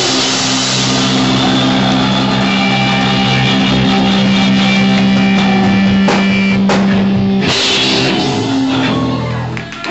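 Punk rock band playing live: electric guitar, bass guitar and drum kit, loud, with long held chords and a short dip in loudness near the end.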